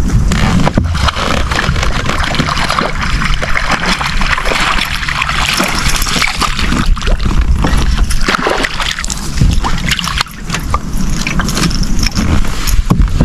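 Water splashing and sloshing as a hooked largemouth bass is fought and landed beside a boat. Irregular sharp splashes sit over a steady low rumble.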